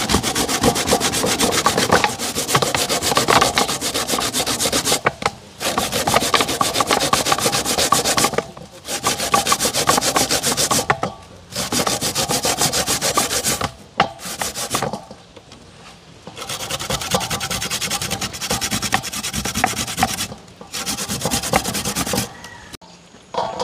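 Coconut flesh being grated by hand on a homemade grater of nail-punched sheet metal: fast, rasping back-and-forth strokes in bouts of a few seconds, broken by short pauses.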